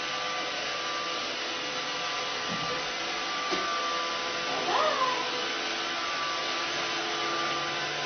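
Roomba robot vacuum running with a steady whirring hum, and a cat meows once, a little under five seconds in.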